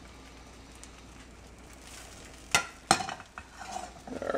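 Beaten eggs sizzling softly in butter in a hot stainless steel pan, the moisture boiling off under them and keeping them from sticking. About two and a half seconds in, a plastic spatula knocks twice against the pan and then scrapes across it, spreading the eggs.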